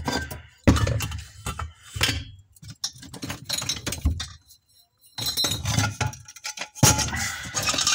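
Pieces of mixed scrap metal clinking and knocking together as they are rummaged through and handled, a string of sharp knocks with a short pause about halfway through.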